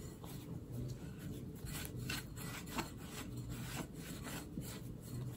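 Hands kneading a crumbly flour, butter and water dough in a glass mixing bowl: faint, irregular rubbing and scraping strokes as the dough is pressed and turned.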